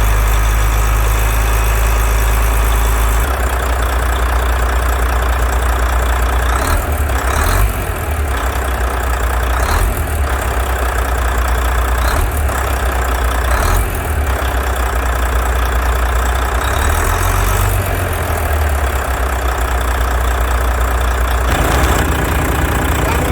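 Volvo FH13 truck's D13 inline-six diesel running at idle, with a few small changes in engine speed from light throttle. The metal-on-metal knock it came in with is not heard after its rocker arms were replaced and valves adjusted.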